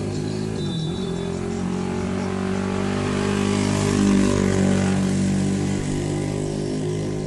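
A motor running with a steady pitch. It grows louder to a peak about four seconds in, then eases off a little.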